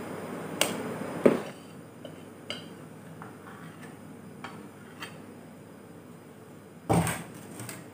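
A spoon knocking and scraping against a ceramic bowl as boiled sweet potato is emptied into a stainless steel pot: two sharp clinks in the first second and a half, scattered light taps, and a louder clatter near the end.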